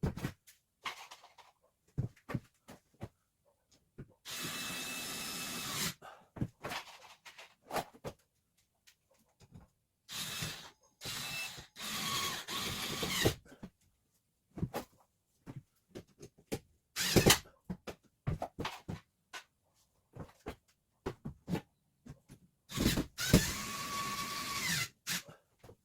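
A power drill running in three runs of one to three seconds each, with short knocks and clatter of handling between them, as plywood ceiling panels are fixed in place.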